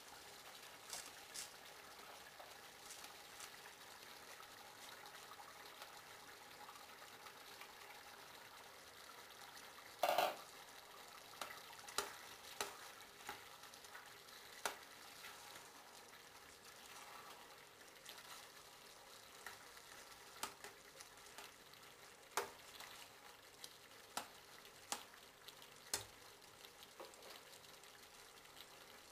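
Chicken, vegetables and rice sizzling faintly in a stainless-steel saucepan while being stirred with a metal spoon. Scattered clinks and scrapes of the spoon against the pan, the loudest about ten seconds in.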